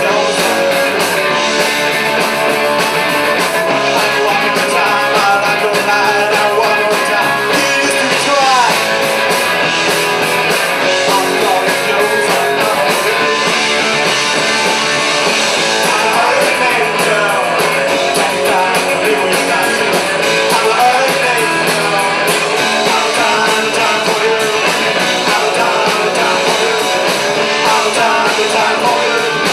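Live rock band playing loud: electric guitars and bass over a drum kit with cymbals.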